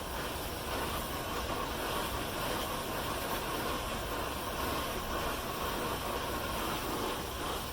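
Lincoln 256 MIG welder running a bead on a cast iron engine block under argon-CO2 shielding gas: a steady hiss of the arc.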